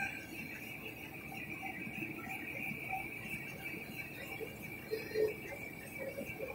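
Rotogravure printing machine running, printed plastic film feeding over its rollers: a steady high whine over a low mechanical hum, with a brief louder sound about five seconds in.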